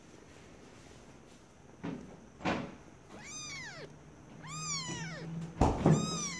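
Very young kitten mewing three times, high thin calls that each rise and then fall in pitch. A few short soft knocks fall in between.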